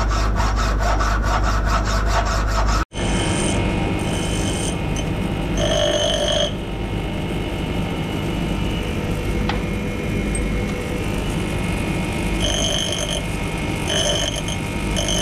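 Hacksaw cutting through a steel bolt clamped in a vise, about four strokes a second, shortening a bolt that is too long. After a sudden cut, a bench grinder runs steadily, with several short bursts of grinding as the bolt's cut end is pressed against the wheel.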